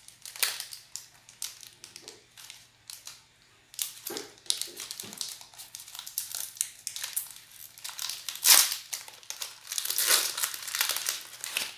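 Foil wrapper of a Pokémon trading-card booster pack crinkling and rustling in irregular bursts as it is torn open by hand, loudest about eight and a half seconds in.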